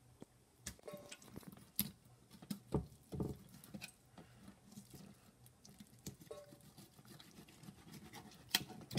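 Faint, scattered clicks and soft scraping as a knife cuts a yellow bullhead catfish fillet away from the bones on a plastic cutting board, with wet handling of the fish.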